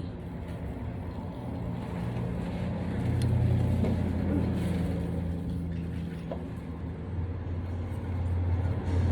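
Low, steady rumble of a motor vehicle engine from street traffic, growing louder about three seconds in and holding.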